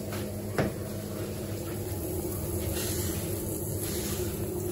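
A cloth wiping a charcoal grill's steel grate clean of crumbs: soft brushing near the middle and end over a steady low kitchen hum, with one sharp knock about half a second in.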